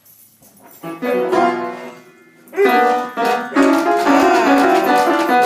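A dog pressing piano keys, sounding clusters of notes that are held as ringing chords, starting about a second in and thickening after a short pause.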